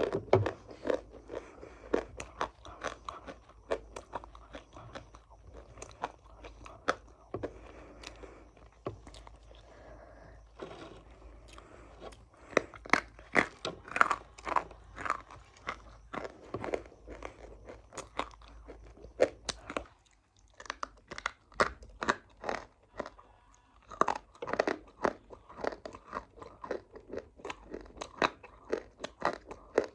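Close-up crunchy eating: a person biting into and chewing a hard, crunchy food, with irregular clusters of sharp crunches and a short pause about two-thirds of the way through.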